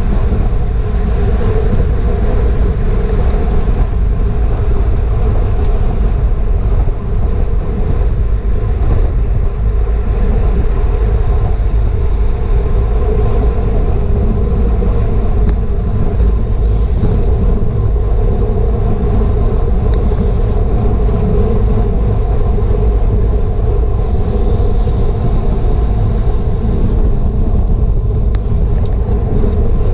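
Heavy wind rumble on a GoPro's microphone while riding a bicycle at race speed, with a steady drone underneath and a few faint high ticks about halfway through.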